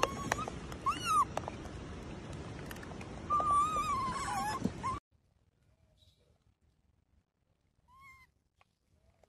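Baby rhesus macaque crying: high-pitched squealing calls, a short arched one about a second in and a longer wavering one a little after three seconds. The sound drops off abruptly about five seconds in, leaving one faint call near the end.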